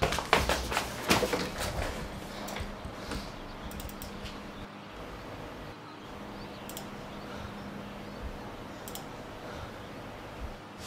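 Computer keyboard and mouse clicks: a quick run of taps and clicks in the first two seconds, then single clicks every few seconds, over a low steady hum.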